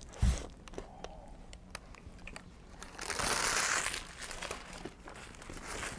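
Close-miked eating: chewing with small mouth clicks, a bump about a quarter second in, and about a second of paper burger-wrapper crinkling around three seconds in.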